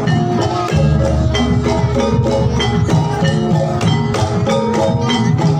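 Jathilan gamelan music played loud over a sound system: struck metal-keyed instruments ring out a repeating pattern of tuned notes over drums and jingles. A heavy bass layer comes in about three-quarters of a second in.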